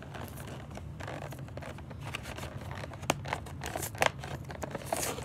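Hands opening a Bakugan toy's cardboard-and-plastic box: scattered scraping and rustling, with sharp clicks about three and four seconds in.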